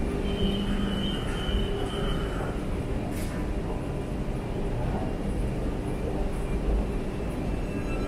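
Automatic metro train in a station: a steady rumble with a thin high whine in about the first two seconds.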